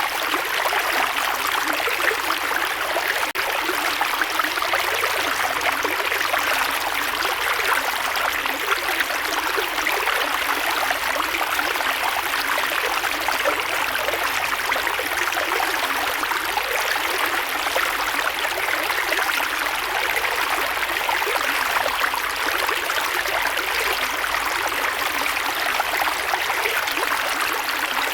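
Creek water flowing steadily over rocks, a continuous rushing with fine splashing and bubbling texture.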